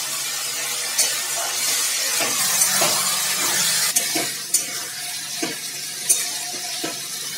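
Bottle gourd and potato pieces sizzling in spiced oil in a metal wok, stirred with a metal spatula that scrapes and clinks against the pan about once a second.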